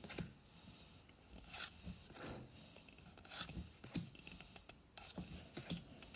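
Pokémon trading cards sliding against one another as a stack is flipped through one card at a time: faint, scattered swishes and light flicks of card stock.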